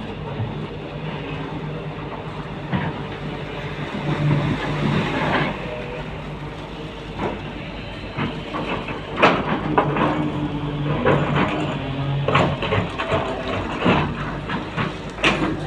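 Excavator's diesel engine running steadily under hydraulic load, with irregular metallic clanks and knocks from the bucket and boom as it works, more frequent in the second half.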